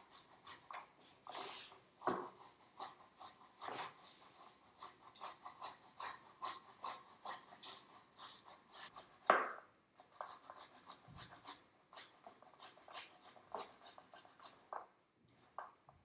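A fresh tomato being grated on a worn handheld metal grater into a bowl: short rasping strokes, two to three a second, with one louder stroke about nine seconds in.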